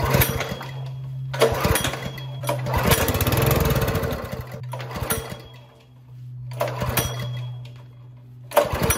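A pressure washer's small OHV gas engine being pull-started several times, turning over and sputtering briefly without settling into a steady run. This is the sign of an engine not getting fuel properly, which the owner traces to a clogged carburetor. A steady low hum runs underneath.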